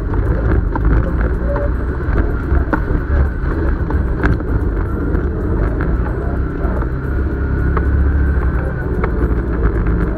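ATV engine running while riding a rough dirt trail, a steady low rumble with scattered knocks and rattles from bumps in the trail.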